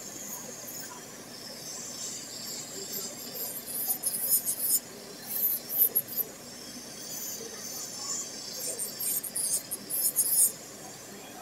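Electric nail drill running with a steady high whine, its sanding band grinding against a fingernail in short scratchy bursts, from about three to six seconds in and again from about eight and a half to ten and a half seconds in, as the nail is filed into an almond shape.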